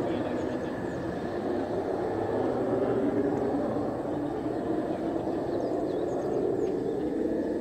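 Mitsubishi F-2 fighter's single turbofan engine heard from the ground as the jet climbs away and banks: a steady jet roar that holds at an even level.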